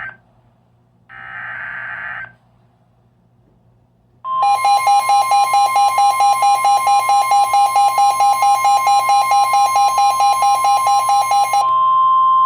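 Emergency Alert System header on NOAA Weather Radio: the end of one screeching SAME data burst, then a second one-second burst about a second in. About four seconds in, the steady 1050 Hz warning alarm tone starts, overlaid by a loud, fast-pulsing electronic beeping that stops near the end while the steady tone runs on. Together these mark the start of a new severe weather warning.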